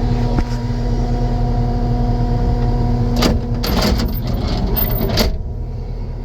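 Takeuchi TL12 skid steer's diesel engine running at a steady idle. A rush of hissing noise rises over it in the second half and cuts off sharply near the end.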